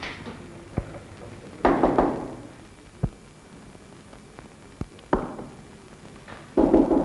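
Knocking on a wooden office door, then a few sharp thuds of a hand stamp pressed down onto papers on a desk.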